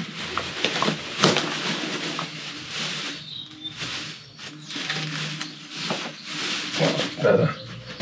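Black plastic bin bag rustling and crinkling as hands rummage through the collected litter in it: wrappers, bottles and cans, with irregular crackles and light knocks.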